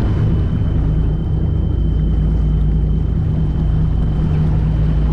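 Fishing boat's engine running steadily with a deep, even hum, and a faint thin high whine held throughout.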